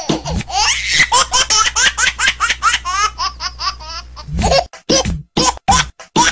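High-pitched laughter in rapid, repeated bursts, about four to five a second. Near the end it breaks into separate short bursts with brief gaps.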